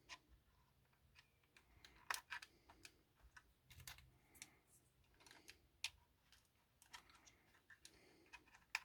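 Faint, irregular clicks and taps of small plastic parts being handled: plastic card being fitted into a model locomotive's plastic body shell, with a few sharper clicks among them.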